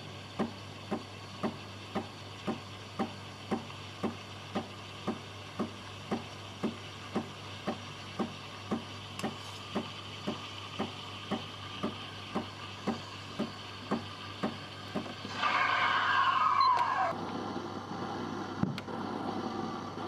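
Breville Barista Express steam wand steaming non-dairy milk in a stainless steel pitcher: the machine's pump pulses about twice a second under a steady hiss that grows stronger. About fifteen seconds in comes a louder rush of steam with a falling squeal lasting about two seconds, after which the steaming stops.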